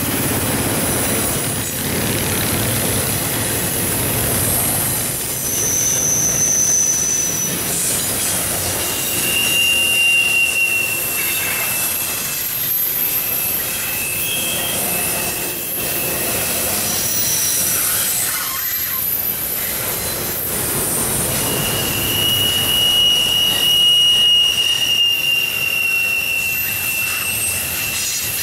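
Double-stack container well cars of a freight train rolling past, a steady noise of steel wheels running on the rail. High-pitched wheel squeal comes and goes, longest in the last third.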